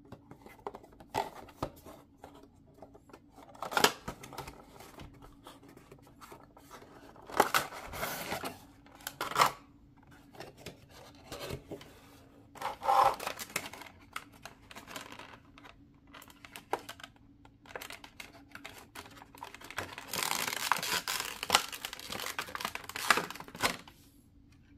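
Cardboard toy box and its clear plastic insert being opened by hand: scattered sharp rips, clicks and rustles of cardboard flaps, then about three seconds of continuous crinkling of the plastic packaging near the end.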